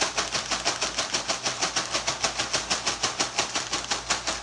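Sealed bag of tortilla chips shaken rapidly back and forth, the chips rattling inside the crinkly snack bag in a fast, even rhythm of about eight rustles a second.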